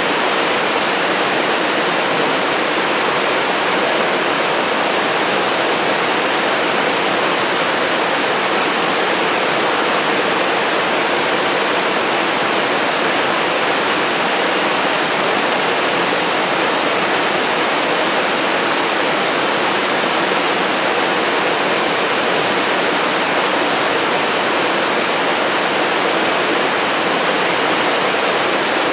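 Waterfall cascading over tiered rock ledges, a steady, unbroken rush of falling water.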